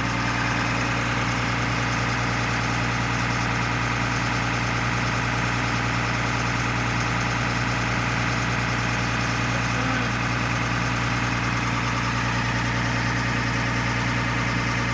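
M1078 LMTV military truck's diesel engine idling steadily after a start.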